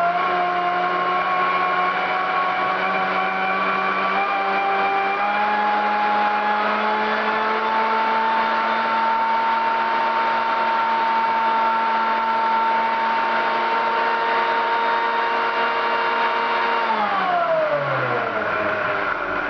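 1950s Kenwood Chef A700 stand mixer running with its beater spinning: a steady motor whine that climbs in pitch in small steps over the first several seconds as the speed control is turned up, then holds. Near the end the pitch falls away sharply as the motor is switched down and winds to a stop.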